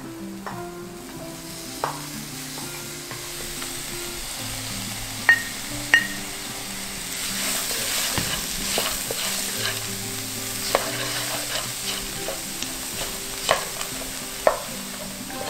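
Diced taro, dried tofu and mushrooms sizzling in sesame oil in a frying pan while being stirred with a wooden spatula that knocks against the pan several times. The sizzle grows louder about halfway through.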